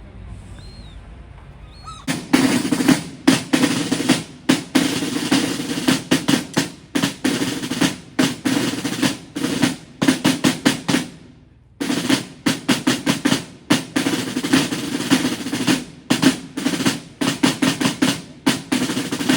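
Snare drums playing fast rolls and beats, starting about two seconds in, breaking off for about a second a little past halfway, then starting again.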